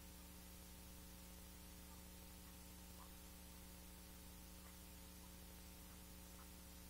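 Near silence: a faint steady electrical hum over low hiss, with a few faint scattered ticks.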